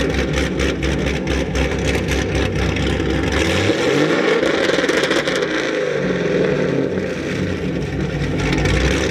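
Car engine running with a pulsing low rumble; its pitch shifts as it is revved around the middle, then it settles back.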